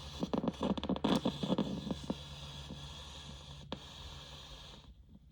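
General Electric 7-2930D radio's speaker hissing static over a low hum, with scratchy crackles and pops for the first two seconds. Near the end the audio drops out almost completely: an intermittent contact that the owner puts down to oxidation.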